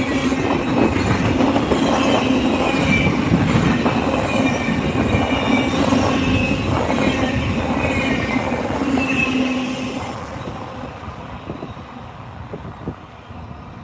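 Double-stack container freight train rolling past at close range: steady heavy rolling of steel wheels on rail with a high, wavering squeal from the wheels. The noise falls away about ten seconds in as the last well car passes.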